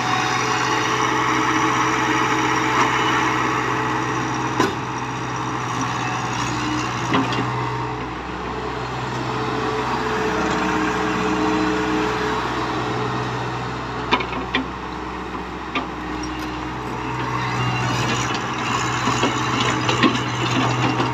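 JCB JS81 tracked excavator's diesel engine running steadily while the machine works, the sound swelling and easing with the load. A few short sharp metallic knocks come through, and a pushing of dirt and stones under the dozer blade is heard near the end.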